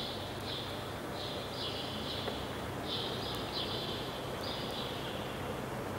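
Insects chirping: a string of short, buzzy, high-pitched trills, each under a second long, repeating unevenly with a longer pause near the end, over a faint steady low hum.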